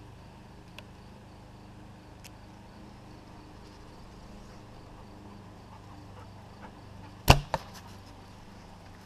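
A compound bow shot at a 15-yard target, about seven seconds in: a single sharp crack as the string is released, then about a quarter second later a second, fainter smack of the arrow striking the target.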